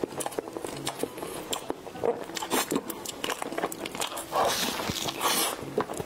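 Close-up mouth sounds of a person eating soft durian mille crepe cake: repeated wet clicks and smacks of lips and tongue as he bites and chews the cream layers.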